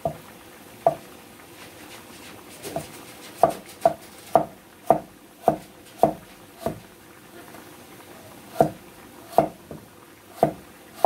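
Kitchen knife slicing a carrot into thin strips on a wooden cutting board: a series of sharp knocks of the blade against the board, coming about two a second through the middle, then a short pause before a few more near the end.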